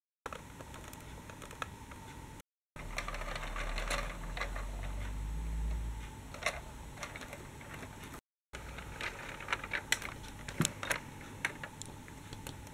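Plastic toy tram rolling along plastic toy track, its wheels clicking and rattling irregularly, with a low rumble under the clicks in the middle. Brief silent gaps break the sound into pieces.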